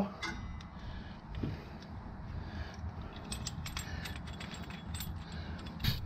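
Light metallic clicks and clinks as a brake caliper retractor tool and a rear brake caliper are handled, scattered and coming more often in the second half, with a sharper click near the end.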